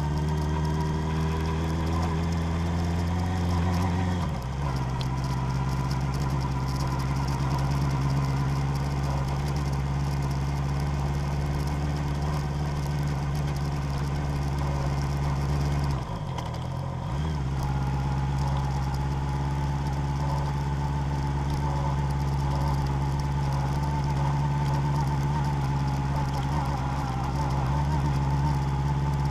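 Motor vehicle engine running steadily while driving an off-road track, its note breaking and shifting briefly about four seconds in and dipping again around sixteen seconds.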